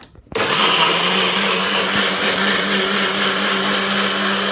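Electric blender switched on, its motor starting almost at once and running steadily at full speed as it blends a fruit smoothie of banana, strawberries, mango, blueberries and juice.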